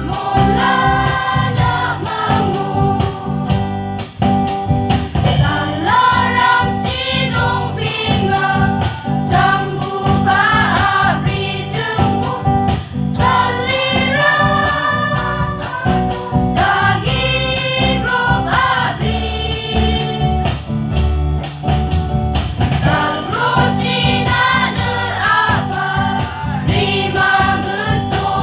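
A women's group singing a church song together into microphones, accompanied by an electric guitar.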